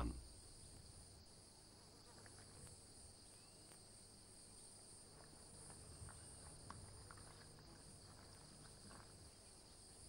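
Near silence: a faint, steady insect chorus of crickets trilling high, with a few soft scratches and ticks of loose soil as an African bullfrog shuffles backwards into it to burrow.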